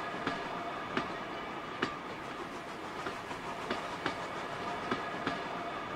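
Dapol O gauge model freight train running on Peco set track: a steady whir from the running train with a faint gear whine, and sharp clicks about once or twice a second at uneven spacing as the metal wheels cross the rail joints.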